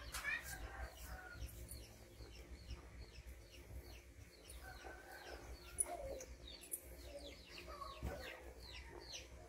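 Birds chirping in quick, short, high falling notes repeating throughout, with an occasional lower call mixed in.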